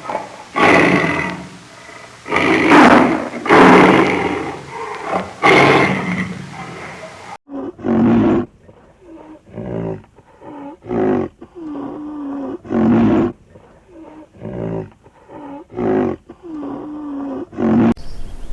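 A large wild animal giving loud calls, about one every one to one and a half seconds. An abrupt cut then brings a second recording of shorter calls, some with a bending pitch.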